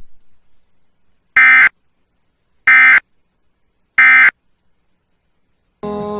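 Emergency Alert System end-of-message signal: three short, loud bursts of screechy digital data tones about 1.3 seconds apart, marking the close of the alert. Music starts near the end.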